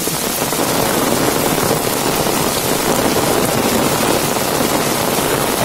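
Heavy rain falling steadily on an umbrella held overhead and on a wet brick-and-concrete lane.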